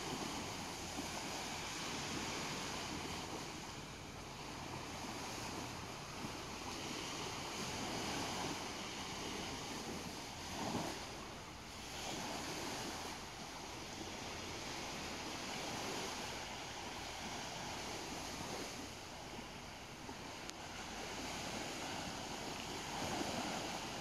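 Small waves washing steadily onto a sandy shore, with wind in the background; one wash swells a little louder about eleven seconds in.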